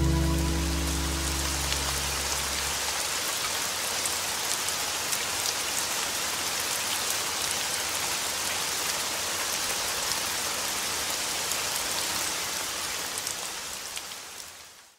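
Steady rain falling, with small drops pattering, as the song's last low notes die away in the first few seconds. The rain fades out near the end.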